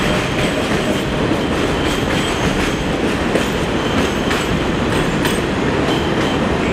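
R142A subway train pulling out of an elevated station, its wheels clacking over the rail joints as the last cars go by and the train runs off down the line. The sound stays steady throughout.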